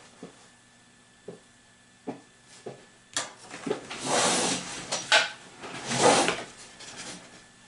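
A few soft scattered clicks, then louder rustling and knocking near the microphone, swelling twice past the middle before dying down.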